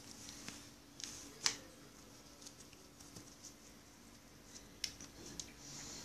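Faint handling noise: a few sharp clicks and light rustling as a hand-held phone is moved and clothing is pulled, over a faint steady low hum.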